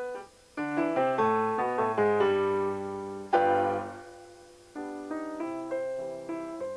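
Piano music: quick runs of notes build to a loud chord about three seconds in that rings out, then a quieter phrase follows.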